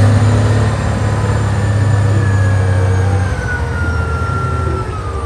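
Large mining haul truck's diesel engine running hard while its hydraulic hoist tips the dump body up, with a steady low drone that eases off about three seconds in and a whine that falls slowly in pitch.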